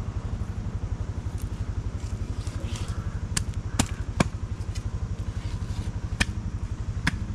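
Small engine running steadily with a fast, even putter, with a few sharp clicks over it.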